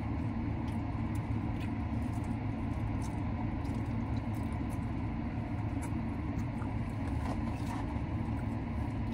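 Steady low rumble of a car idling, heard inside the cabin, with a few faint small clicks as food is handled.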